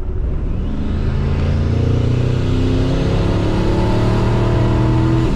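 Single-turbo 5.4L Triton V8 of a 2003 Ford F-150 accelerating hard under about 10 PSI of boost, heard from inside the cab. Its note rises steadily with the revs from about a second in.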